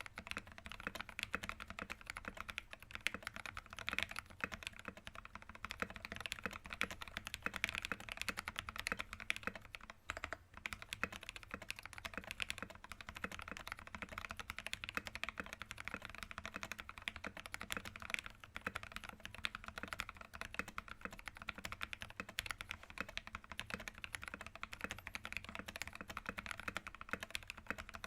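Steady, fast typing on a mechanical keyboard fitted with lubed Gateron Ink linear switches, an aluminium plate and MT3 profile PBT keycaps: a dense run of smooth key strokes, with a couple of brief pauses.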